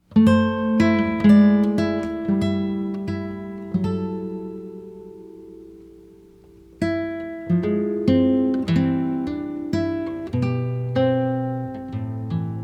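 Music on solo acoustic guitar: picked notes and chords that ring out. About four seconds in, one chord is left to fade for nearly three seconds, then the picking starts again.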